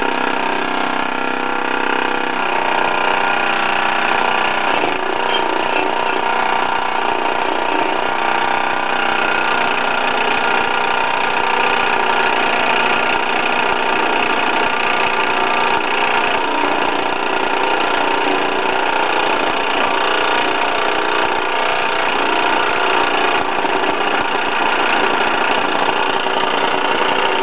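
Stuart Turner ST1 oscillating steam engine running steadily under steam, stuttering a bit, which the owner thinks shows it needs some cylinder lubrication.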